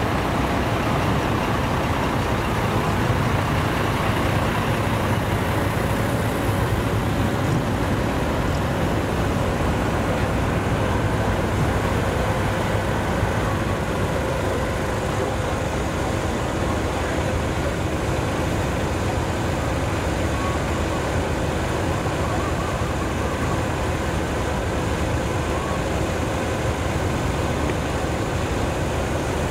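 Idling diesel engines of parked decorated trucks, a steady low rumble with no change in pitch or level.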